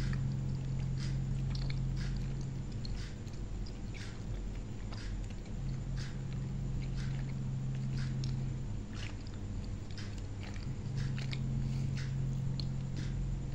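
A person chewing firm gummy jelly candies, with irregular wet mouth clicks and smacks throughout.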